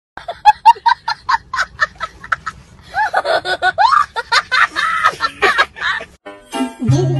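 A person laughing: a quick run of short bursts of laughter, then a longer stretch whose pitch swoops up and down.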